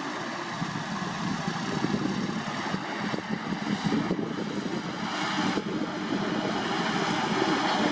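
Diesel engine of a Sany SY75C hydraulic excavator running steadily under working load, with a few faint knocks in the middle.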